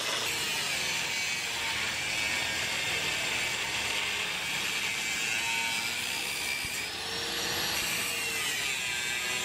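Electric angle grinder with a thin cut-off disc cutting and grinding steel plate: a steady, high, hissing grind, with the motor's whine dipping and rising in pitch as the disc is pressed into the metal.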